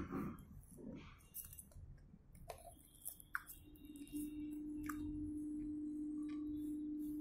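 Chewing and soft mouth sounds, with a fork and knife clicking against the food and plate now and then. About four seconds in, a steady low hum tone comes in and holds.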